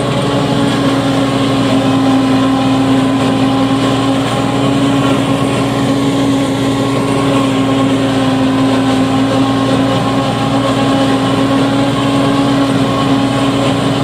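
Tractor-driven Celmak forage harvester chopping standing corn and blowing the chopped silage out of its spout, with the tractor engine working under load: a loud, steady machine drone with a constant-pitch hum.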